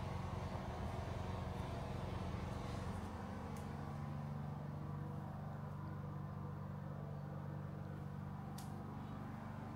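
Steady low mechanical hum with several held tones, one growing stronger about three seconds in, and two faint ticks.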